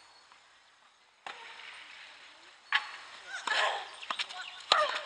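Two sharp knocks about two seconds apart, the louder near the end, with faint voices in between.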